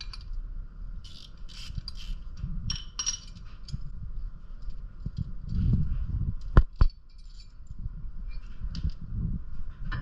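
Metal tools and suspension parts clinking and scraping as they are handled, with two sharp metallic knocks a little past halfway.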